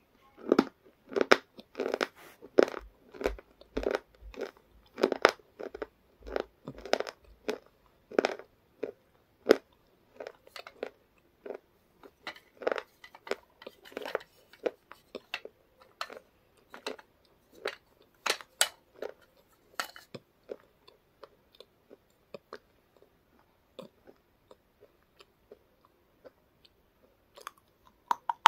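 Crunching and chewing of brittle flaky black chips: crisp chews about twice a second that thin out after about ten seconds, with a few sharp snaps partway through, a quieter spell, and a fresh bite near the end.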